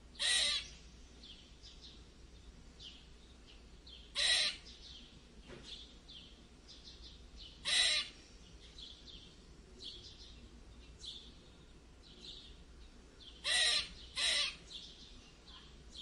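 Squirrel giving angry squeaks: five loud, harsh calls, each under half a second, a few seconds apart, the last two close together near the end.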